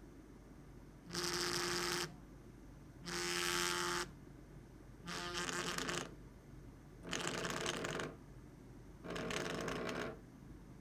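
Smartphone vibrating against a hard tabletop: five buzzing, rattling pulses of about a second each, one every two seconds, like an incoming call or alert.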